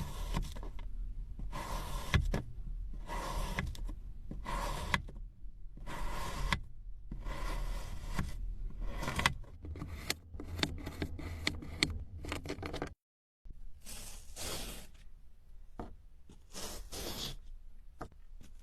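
Kinetic sand being scraped and cut with a tool: a series of gritty scraping strokes about a second each, then a run of quick crisp crunches about ten seconds in, cut off briefly near the thirteen-second mark before the scraping resumes.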